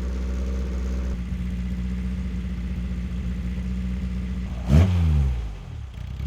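Racing engine running steadily. About three-quarters of the way in it gives a sudden loud rev whose pitch rises sharply and then falls away, with a second, shorter rev near the end.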